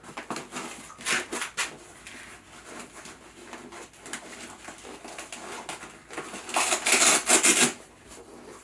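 Fabric-and-neoprene motorcycle hand cover rustling and rubbing as it is pushed and worked onto a handguard, with a louder scratchy stretch about six and a half seconds in that lasts about a second.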